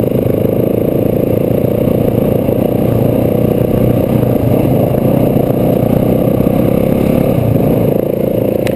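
Yamaha dirt bike's engine running at a steady, moderate speed while riding a dirt track, heard close up from the bike itself.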